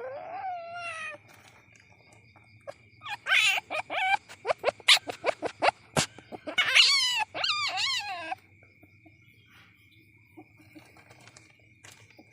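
Young palm civet calling: wavering cries with several overtones that slide downward, broken in the middle by a quick run of short, sharp calls, with a longer wavering cry that falls away at its end. A faint steady high whine runs underneath.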